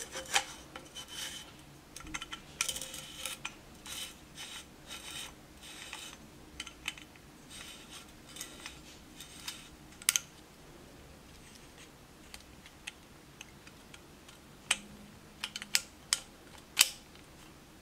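AR-15 buffer tube, endplate and castle nut being fitted back onto the lower receiver by hand: scattered light clicks, scrapes and rubbing of metal and polymer parts, with a sharper click about ten seconds in.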